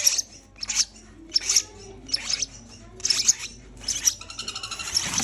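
Sun conure giving repeated shrill calls, about one every three-quarters of a second, breaking into a fast run of short chattering notes near the end.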